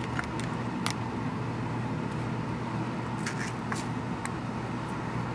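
A few light clicks and taps of a metal fork against a ceramic plate as a soft taco is pressed and folded, over a steady low hum.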